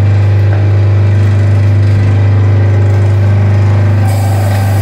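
Electric rotary-blade chicken cutting machine running with a loud, steady hum. About four seconds in, a piece of chicken is pushed into the spinning blade and a rougher cutting noise joins the hum.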